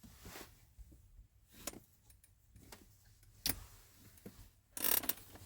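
Rustling and small clicks from a hung wool blanket being taken down, with a sharp click about three and a half seconds in and a louder rustle near the end.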